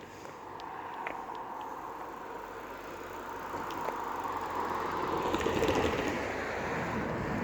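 A vehicle passing by, rising to its loudest about five to six seconds in and then easing off.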